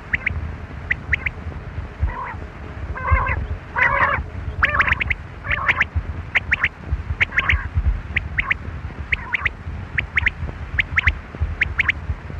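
Quail calling: short, sharp whistled notes repeated in quick groups of two or three, with a few harsher rasping calls about three to four seconds in, over a low rumble.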